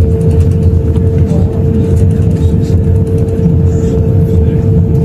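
Cabin noise inside an Airbus A350-1000 taxiing on the ground: a steady low rumble with a steady hum, from its Rolls-Royce Trent XWB engines at taxi power and the rolling airframe.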